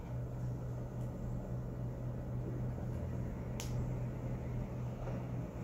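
Room tone: a steady low hum, with one short faint click about three and a half seconds in.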